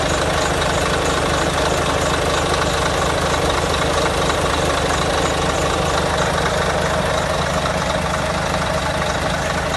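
Scania diesel engine of a Higer Touring coach idling steadily, heard close up in the open engine bay with its accessory belts and pulleys turning.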